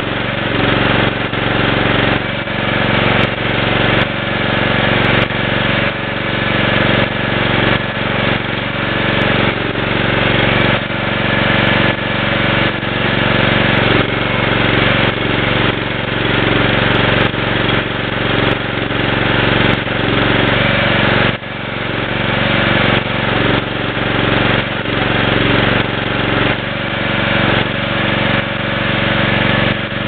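Riding lawn mower's engine running steadily while powering a homemade backhoe attachment that is digging.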